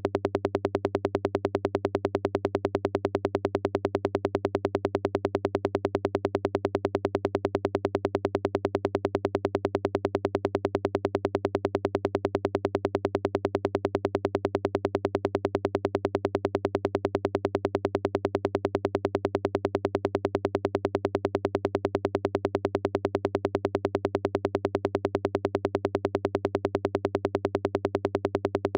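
Synthesized sound from a VCV Rack software modular synth patch: a rapid, even stream of pulses over a steady low drone, unchanging throughout.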